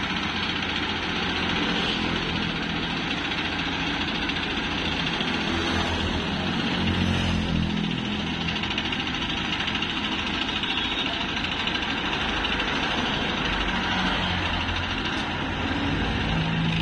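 Diesel engine of an ACE 12XW pick-and-carry crane running steadily while the crane holds a suspended load.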